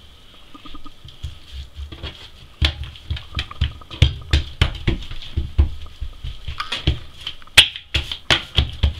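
A hand slapping and pressing oiled msemen dough flat against a tabletop: a run of irregular slaps and pats, sparse for the first couple of seconds, then quicker, with the loudest slap near the end.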